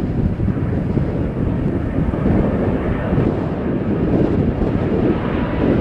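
Airbus A330 airliner's jet engines on final approach, a steady rushing roar, mixed with wind buffeting the microphone.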